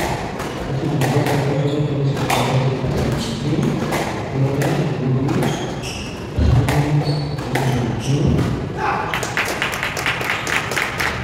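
Squash rally: a hard squash ball struck by rackets and hitting the court walls, giving repeated sharp knocks and thuds, with shoes moving on the wooden court floor.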